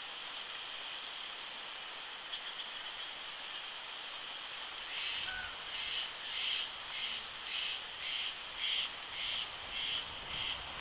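Bald eagle calling: a run of about ten short, high, chattering notes, roughly two a second, starting about halfway in, over a steady hiss.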